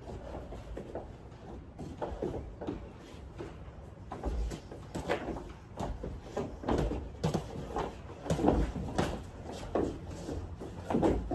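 Irregular thuds and knocks of light sparring: punches landing and feet moving, coming faster and louder after about four seconds.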